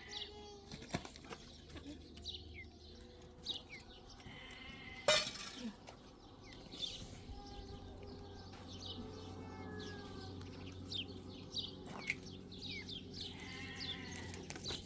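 Flock animals bleating, with several drawn-out bleats near the start, around four seconds in and near the end. Short high bird chirps are scattered throughout, and a single sharp knock sounds about five seconds in.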